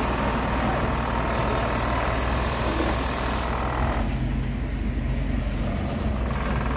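Heavy truck's diesel engine idling steadily, with a hiss over it that cuts off about four seconds in.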